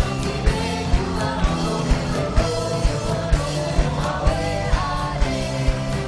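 Live band playing an upbeat song with sung vocals and keyboard over a steady drum beat of about two beats a second.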